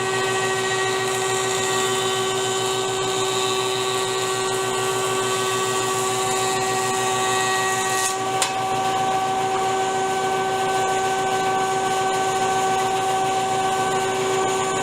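A woodworking power tool's motor running at a steady speed, giving a whine made of several steady tones. One of the higher tones drops out about eight seconds in, and a short sharp click follows soon after.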